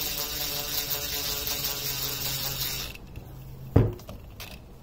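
A DeWalt 20V MAX XR brushless cordless drill runs steadily on a gentle, low setting, driving a screw that taps its own thread into plastic and aluminium. The motor stops about three seconds in, and a sharp knock follows just under a second later.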